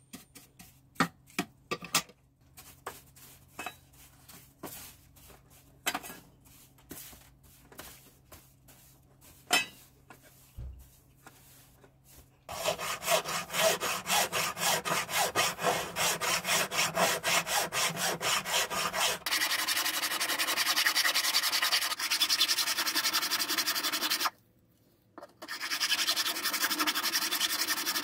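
Light scattered clicks and taps of tools being handled. About twelve seconds in, a hand file starts rasping back and forth on a thin silver strip in quick, even strokes, with one short pause near the end.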